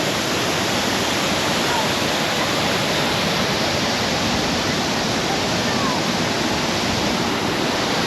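Shannon Falls, a tall waterfall, giving a strong, steady rush of falling water that stays even throughout.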